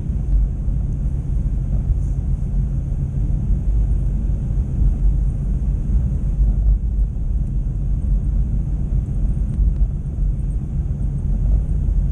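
Steady low rumble of a car driving, heard from inside its cabin: engine and road noise with no distinct events.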